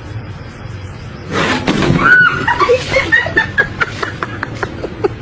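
A sudden loud noise about a second and a half in, then a person laughing hard in quick, high-pitched bursts.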